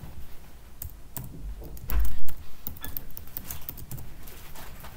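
Typing on a computer keyboard: irregular keystroke clicks while a terminal command is entered and a text editor opens. A dull low thump about two seconds in is the loudest sound.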